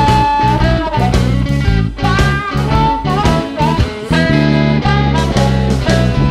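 Music: a lead guitar playing bent, sliding notes over a steady bass line and a drum beat, in a bluesy style.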